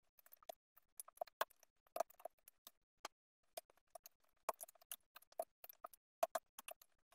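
Computer keyboard typing: faint, quick irregular runs of keystrokes with short pauses between bursts.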